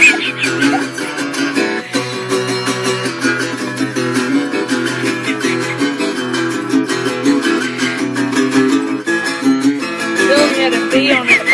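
Guitar played with quick, steady strumming of chords, keeping up a fast dance rhythm without a break.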